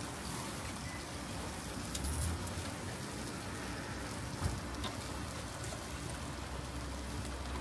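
Chicken yakitori skewers sizzling over a stall grill, a steady crackling hiss, with a few sharp clicks as the skewers are turned.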